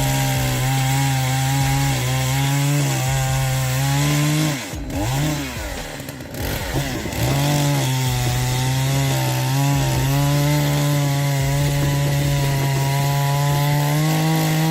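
Chainsaw engine running at high revs, its pitch held steady, dipping and climbing back a couple of times in the middle, then steady again.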